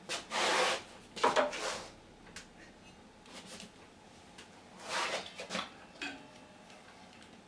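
Workshop handling noise: three short bouts of clattering and scraping as hard pieces are moved and set down, the first two close together near the start and the third about five seconds in, with faint knocks between.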